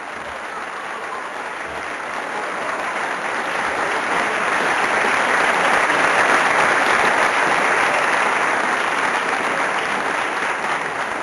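Audience applauding. The clapping grows louder to a peak about halfway through, then eases off a little near the end.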